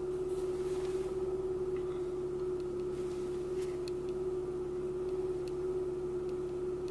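Car engine idling steadily on a raised cold-start idle of a little over 1000 rpm, heard from inside the cabin as a steady hum.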